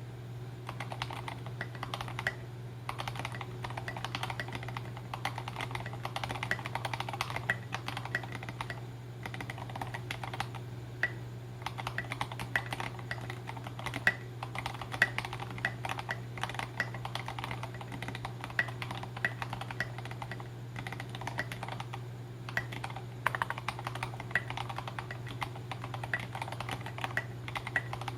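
Typing on a KBDfans Tofu mechanical keyboard in HHKB layout with SA-profile keycaps: a steady stream of keystrokes with a few brief pauses. A low steady hum runs underneath.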